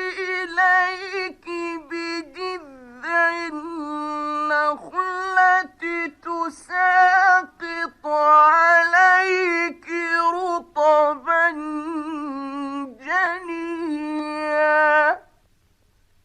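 A male reciter's voice chanting the Quran in the melodic mujawwad style, with long held and ornamented notes that bend up and down between short breaths. The voice stops about 15 seconds in.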